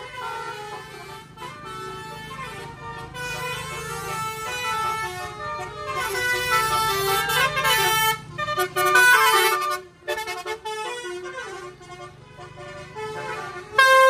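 Telolet musical air horn (Basuri horn) playing a tune of quick stepped notes, growing louder to a peak in the middle, dipping briefly about ten seconds in and then carrying on more quietly.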